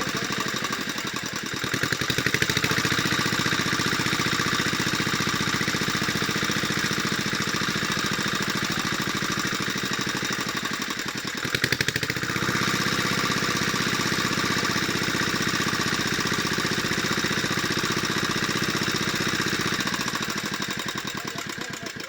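An engine running steadily with a fast, even knocking beat. It dips briefly and picks up again about halfway through, then dies away near the end.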